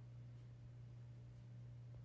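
Near silence: indoor room tone with a steady low hum.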